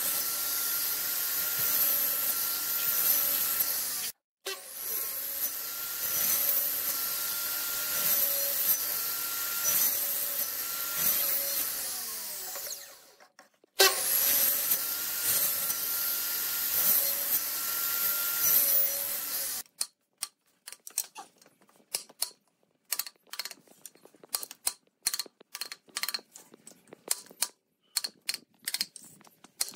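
Electric mitre saw running and cutting through wooden boards, its motor a steady whine broken twice by sudden short gaps. About two-thirds of the way in it gives way to sharp, irregular taps: a wooden mallet driving a chisel to cut notches in a wooden beam.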